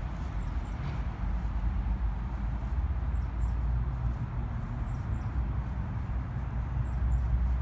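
Domestic cat purring steadily while its back is being stroked: a continuous low rumble.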